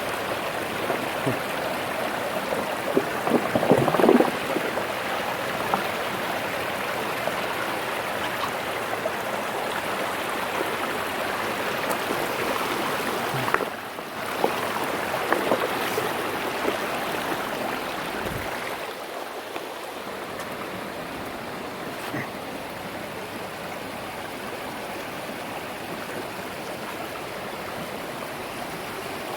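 River water flowing and rushing in a steady noise, with a louder stretch about four seconds in and a slight drop in level later on.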